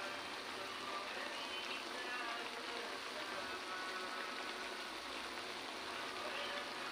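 Squid sizzling and simmering in a wok in the dark ink it has released, a steady, even hiss.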